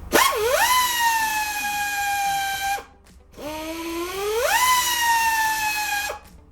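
High-speed rotary cutting tool cutting off the end of a small steel machine screw, in two runs: each time the whine climbs as the tool spins up, sags slowly in pitch as it bites into the screw, then stops abruptly.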